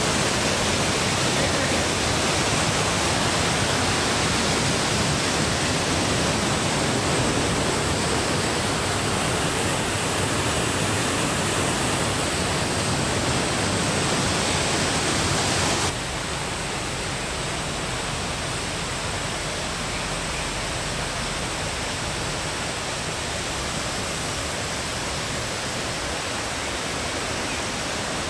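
Waterfall roaring: a steady, even rushing of falling water that drops suddenly in level about halfway through and then carries on steadily.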